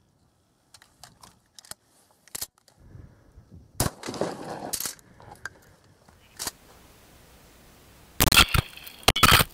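12-gauge Remington 870 pump shotgun firing a DGS-12 lead slug into a bullet-resistant glass panel. One sharp blast about four seconds in, with a noisy tail. Near the end, two louder blasts follow as the shot is heard again from a camera behind the glass.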